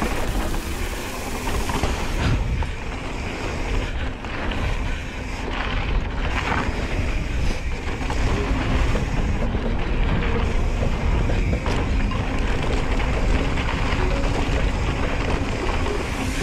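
Specialized Stumpjumper mountain bike riding a dirt trail: wind rushing over the microphone, with the tyres and the rattling bike making frequent small knocks over the bumps.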